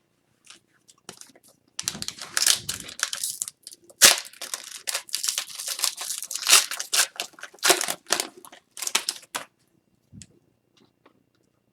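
Foil or plastic wrapping of a trading card pack being torn open and crinkled, in a run of quick crackling rips for several seconds. It is followed by a soft thump.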